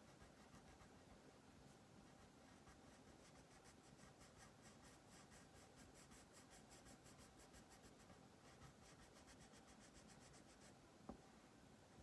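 Faint scratch of a Crayola wax crayon colouring back and forth on paper in quick, even strokes, several a second. The strokes stop shortly before the end, followed by a single sharp click.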